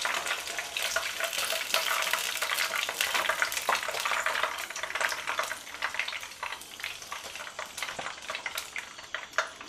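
Hot oil sizzling and crackling around masala-coated chicken wings frying in a pan, the crackle thinning toward the end.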